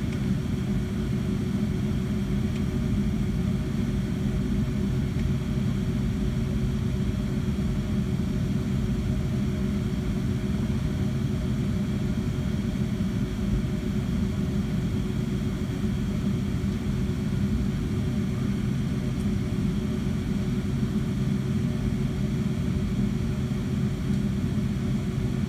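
Steady cabin noise inside a Boeing 757-200 taxiing with its jet engines at idle: an even low rumble with a steady hum.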